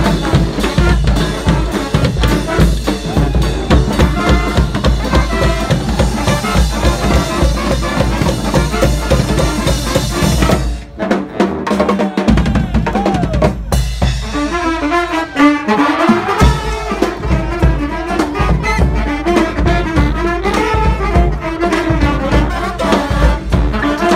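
Street brass band playing a bhangra-style tune, with drums driving the groove and brass above. About eleven seconds in the beat briefly breaks off, then the horns come back in strongly over the drums.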